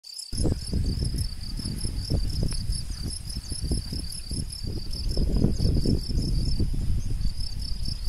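Insects chirping in a fast, regular pulse, high-pitched, over a louder, uneven low rumble.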